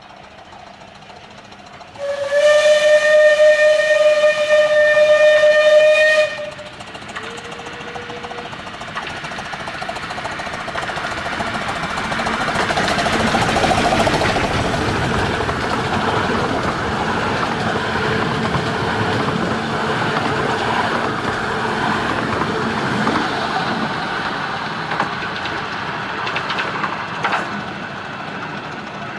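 A miniature steam locomotive's whistle blows one long, steady blast of about four seconds, then a short, fainter note. The train then comes by, its noise building to a peak about halfway through and carrying on to the end.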